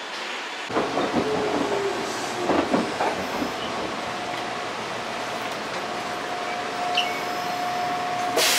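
Inside a Meitetsu electric commuter train car by the doors: the car runs along the rails with a steady rumble and some knocks and clatter. About six seconds in, a steady whine comes in, and near the end there is a short, sharp hiss.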